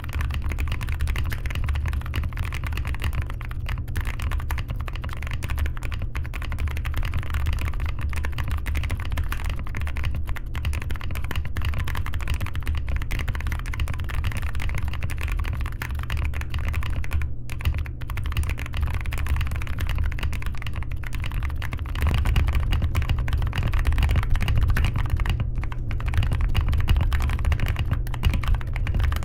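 Tiger 80 TKL mechanical keyboard with Blueberry Chiffon tactile switches and PBT keycaps on a polycarbonate plate, typed on quickly and continuously: a dense, steady stream of key clacks that gets a little louder about two-thirds of the way through.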